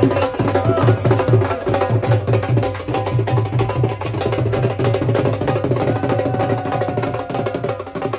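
Dhol, a double-headed barrel drum, beaten with sticks in a fast, steady rhythm. Deep bass strokes come about five a second under sharp cracks from the treble head, easing off slightly near the end.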